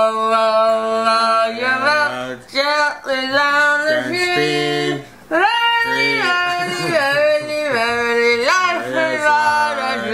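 A man and a woman singing together while wearing cheek-retractor mouth guards that hold their lips apart and blur the words. They sing long held notes that slide up and down, with brief breaks for breath.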